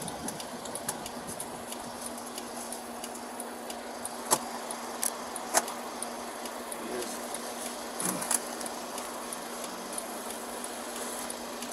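Handling noises as a driver searches his car for his papers: a few sharp clicks and knocks, two close together about eight seconds in, over a steady hum and hiss.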